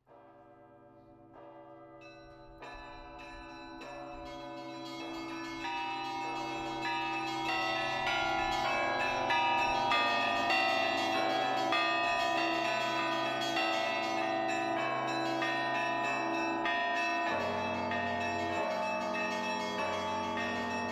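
Orthodox church bells ringing from a belfry: single strokes at first, building over several seconds into dense, overlapping ringing of many bells of different sizes. A deeper bell joins about three-quarters of the way through.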